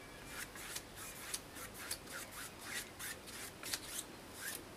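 Large paintbrush stroking acrylic paint onto a canvas: a quick series of faint, short brushing rubs, about three a second.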